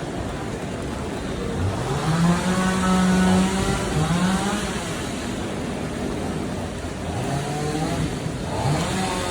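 Motor vehicle engines accelerating past on a road in heavy rain. One engine climbs in pitch and holds about two seconds in, another rises about four seconds in, and more climb near the end, over the steady hiss of rain.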